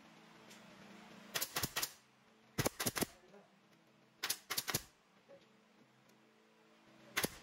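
Pneumatic nail gun firing nails into wooden slats in quick runs of sharp shots, about four at a time three times, then a pair near the end. A low steady hum runs underneath.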